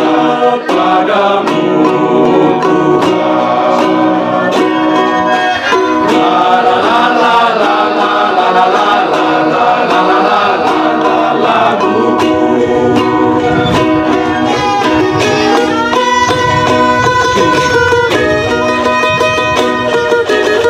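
A men's choir singing in parts, accompanied by strummed ukuleles. About twelve seconds in, the voices give way to an instrumental passage of violin and ukuleles.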